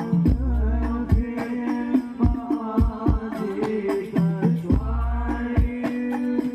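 Hadroh ensemble playing: frame drums struck in a fast, dense rhythm, with two long, deep bass-drum booms, about a quarter second and nearly five seconds in, under a wordless sung melody.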